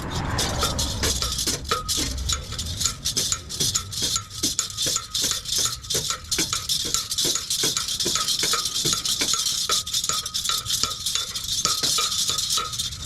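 Ratchet wrench clicking rapidly, about four metallic clicks a second, as it works the clamp nuts on an exhaust pipe connector.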